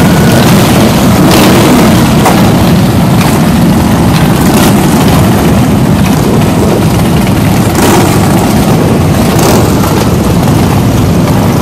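A large group of motorcycles, mostly cruisers and touring bikes, idling together loudly.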